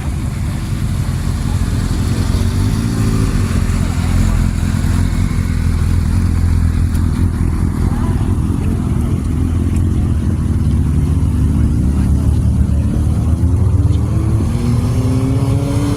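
A car engine running with a deep, steady exhaust rumble, then rising in pitch near the end as it accelerates away.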